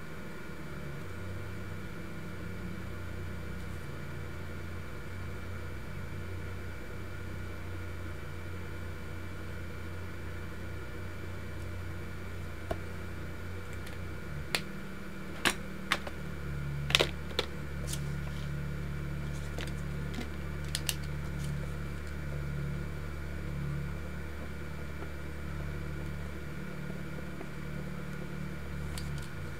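Steady low hum with a handful of sharp clicks and taps about halfway through, the loudest a little after the middle.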